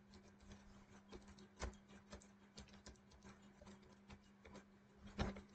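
Faint typing on a computer keyboard: a run of soft, irregular key clicks as a password is entered, with a louder click about five seconds in. A steady low hum runs underneath.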